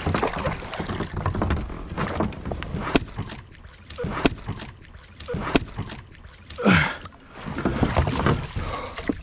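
A big largemouth bass thrashing and splashing at the water's surface beside a kayak while being netted, with sharp clicks and knocks of fishing gear against the hull. About two-thirds of the way in, a brief sound slides down in pitch.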